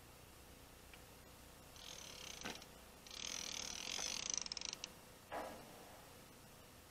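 Fishing reel's clicker buzzing in two bursts, a short one about two seconds in and a louder, longer one from about three seconds, followed by a brief scuff near the end as a rod is handled.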